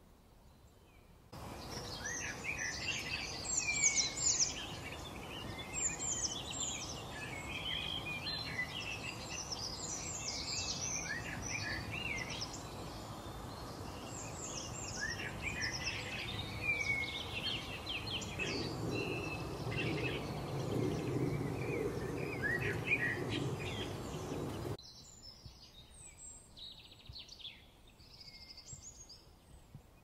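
Many songbirds chirping and singing at once over a steady hiss, the chorus starting abruptly about a second in. A low rumble swells beneath it later on, then it all cuts off sharply a few seconds before the end, leaving fainter scattered bird calls.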